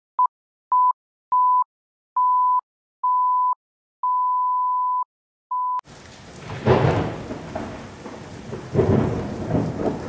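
A countdown leader's beeps: seven beeps at one steady pitch with silence between, each longer than the last, the sixth held about a second. Just before six seconds in, the beeps stop and a rain-and-thunder storm sound effect begins: steady rain with two rolls of thunder.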